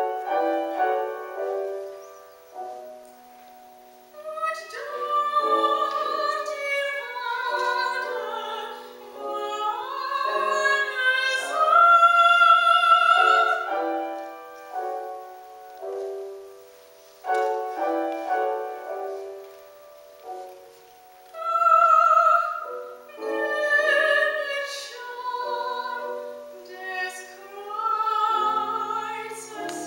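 A female classical singer singing a German art song with wide vibrato, accompanied by a Steinway grand piano. The piano plays alone for the first few seconds and again briefly about halfway through, between her sung phrases.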